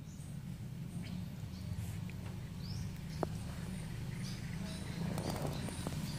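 A beagle rubbing its itchy belly on a grass lawn, with a short rustle of grass about five seconds in and one sharp click a little after three seconds. Underneath is a steady low hum with faint high chirps.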